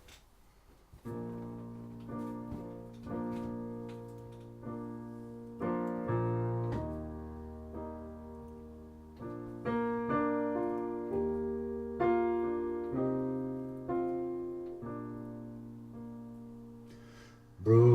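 Slow piano introduction to a song. Chords are struck roughly once a second, starting about a second in, and each is left to ring and fade before the next.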